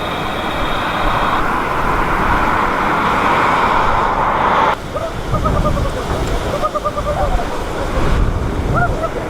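Steady rush of jet airliner engine noise with a faint high whine, which breaks off abruptly about five seconds in. After that, strong wind buffets the microphone, with faint short chirps over it.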